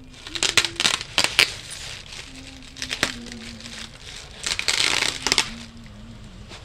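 Clear plastic air-cushion packaging crinkling and crackling as it is handled: a cluster of sharp crackles in the first second and a half, a snap about 3 s in, and a longer rustle about 5 s in.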